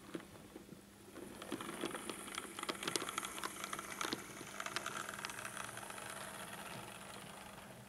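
Model railway locomotive running along the track: the whir of its small electric motor and the clicking of wheels over rail joints. It comes in about a second in and fades away near the end, as if passing by.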